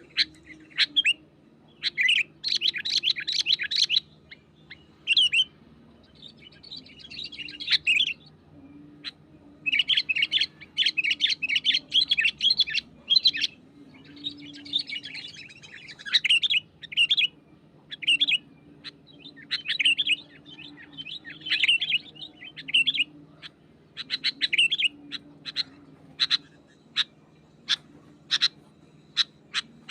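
Sooty-headed bulbul singing: bursts of rapid, chirpy, bubbling phrases, each one to three seconds long, that break into single sharp call notes in the last few seconds, over a faint steady low hum.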